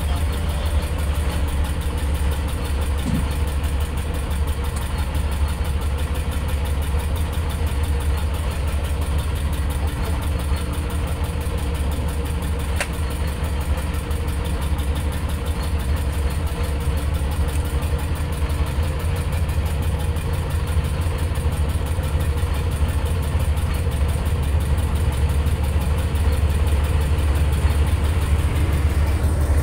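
A boat engine idling steadily with a deep, even drone.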